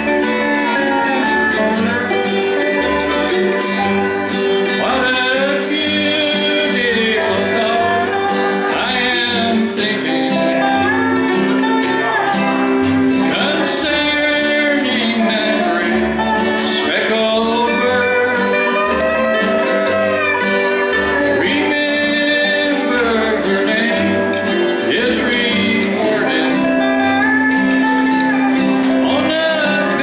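Acoustic bluegrass band playing and singing: a man's voice carries the melody over guitar, with a plucked upright bass keeping a steady beat of low notes.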